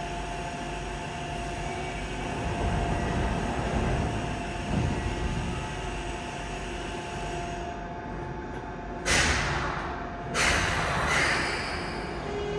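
Yokohama subway 3000A-type train standing at the platform with a steady electrical hum, then two short bursts of compressed-air hiss about nine and ten and a half seconds in. Near the end the Mitsubishi GTO-VVVF inverter starts its rising, siren-like whine as the train begins to pull away.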